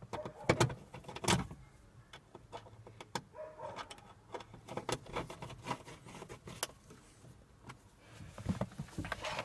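A hand screwdriver driving a self-tapping screw into plastic dashboard trim: irregular clicks and short knocks of the screw and tool, the loudest two in the first second and a half.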